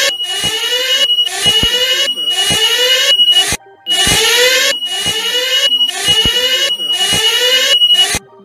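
Mock emergency-alert alarm: a string of rising siren-like sweeps, each about two seconds long, with a steady high beep tone laid over them. It cuts out briefly about halfway through and again near the end.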